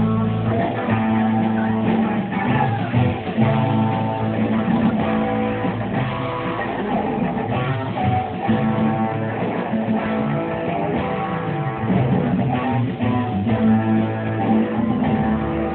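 A small live band playing, with guitars strummed to the fore over bass.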